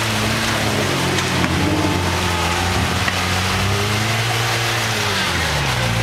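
Toyota pickup rock crawler's engine running under load as it crawls up rock ledges, its speed rising and falling several times and dropping near the end.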